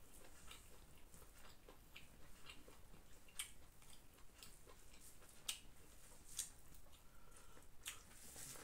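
Faint sounds of eating chicken biryani by hand: fingers mixing and scooping rice on a banana leaf, and chewing, heard as scattered soft clicks with a few sharper ones.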